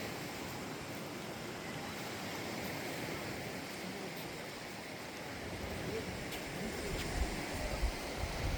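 Steady rush of water from sea surf and a freshwater stream running into the sea. Over the last few seconds, uneven wind gusts rumble on the microphone.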